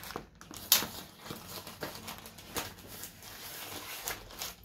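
Plastic mailing bag rustling and crinkling as it is peeled back and torn open from a cardboard box, with scattered small clicks and one sharp click under a second in.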